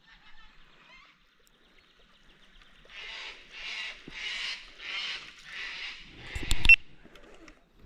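A bird gives a run of six harsh, evenly spaced calls, under faint chirping from smaller birds. Just after the last call comes a short loud thump, the loudest sound of all.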